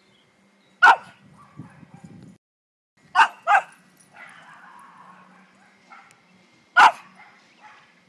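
Pekingese barking in short, sharp barks: one, then a quick pair about two seconds later, then a single bark near the end, with softer, fainter sounds from the dog in between.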